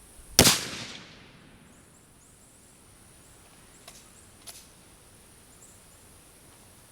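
A single shot from a 1937 Tula Mosin-Nagant rifle firing 7.62×54R: one sharp, loud report that dies away over about a second. Two faint clicks follow a few seconds later, over a steady high insect buzz.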